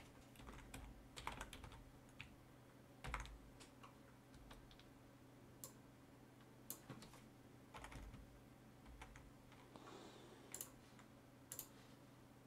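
Faint, scattered computer keyboard keystrokes and clicks at irregular intervals while a formula is being edited.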